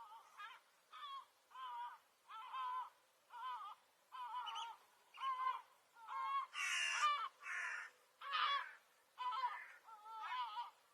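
Gull calling: a steady series of short, harsh calls, about one every 0.7 seconds, louder around the middle.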